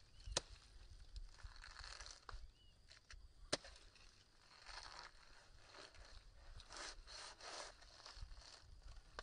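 Knife cutting into a ripe pineapple, faint rasping cutting strokes through the fruit's flesh and rind, most of them in the second half, with two sharp clicks, one about half a second in and one about three and a half seconds in.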